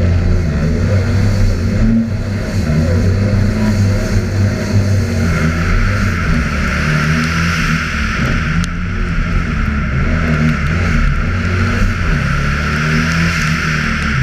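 Audi Quattro Group B rally car's turbocharged five-cylinder engine heard from an onboard camera, running hard under acceleration with its pitch stepping up and down as it is driven and shifted through gears. A hiss grows louder about five seconds in.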